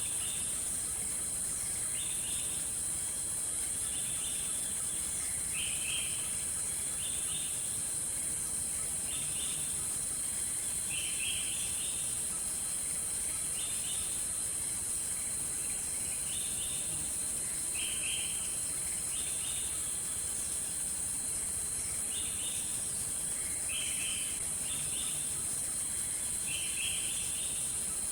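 Forest insects droning: a continuous high-pitched shrill, with short chirping calls repeating every one to two seconds.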